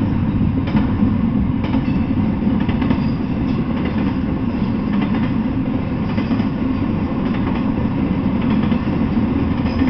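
Double-stack intermodal freight train rolling past: a steady low rumble of steel wheels on rail with irregular clicks from the wheels and cars, and faint high squeals now and then.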